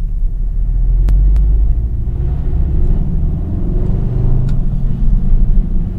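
Car engine and drivetrain rumbling at low revs, heard from inside the cabin while driving, with a few sharp ticks about a second in and again past the middle. This is the low-rev condition in which the owner hears a rattle-chatter after fitting a new Stage 3 clutch, a noise he thinks may be the clutch hydraulic line knocking against the chassis leg.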